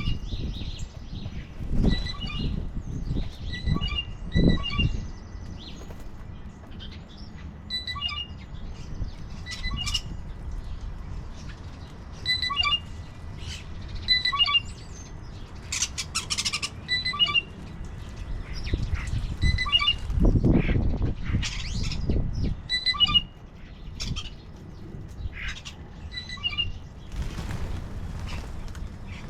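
Songbirds at a feeder giving short, repeated chirping calls throughout, with a few bouts of low rumbling underneath.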